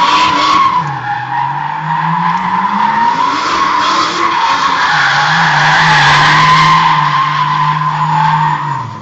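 Nissan Skyline ER34 drift car sliding with its tyres squealing continuously, a wavering high squeal over the engine, whose note drops, climbs and then holds. The squeal and engine die away near the end.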